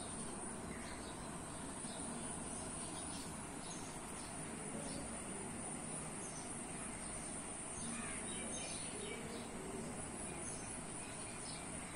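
Steady high-pitched insect trilling, like crickets, with a few faint bird chirps scattered through it.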